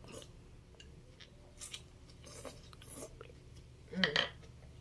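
A person eating chicken rice porridge: sipping from the bowl and chewing, with soft, scattered wet mouth noises. A brief louder mouth or voice sound comes about four seconds in.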